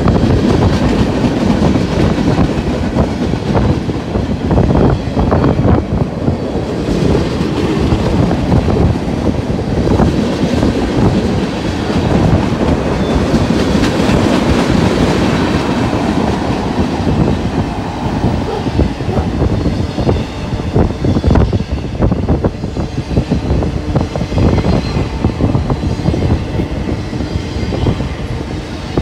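Freight train rolling past close by: a continuous rumble of cars with a steady run of wheel clicks over the rail joints.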